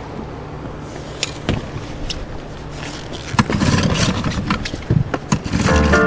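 Rowing an inflatable boat: sharp knocks from the oars in their oarlocks and water sloshing against the boat, over a steady rumble of wind on the microphone. Background music with piano-like notes comes in near the end.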